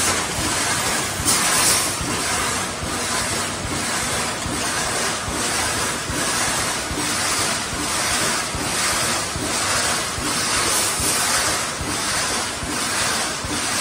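CANDID GWC2500 wire mesh welding line running: a steady noisy hiss with a regular pulse about one and a half times a second as the machine cycles.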